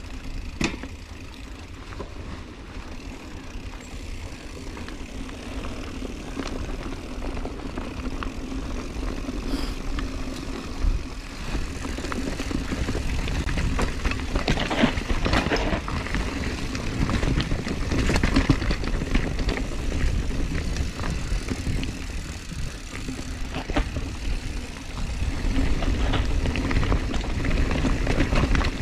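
Mountain bike rolling fast down a dirt trail: tyre noise and wind rumble on the camera microphone, with frequent knocks and rattles as the bike goes over bumps. It gets louder after about ten seconds.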